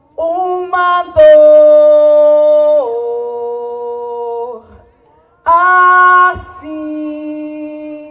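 A woman's voice singing a slow, unaccompanied liturgical hymn in long held notes that step up and then down in pitch, with a short breath-pause about halfway through.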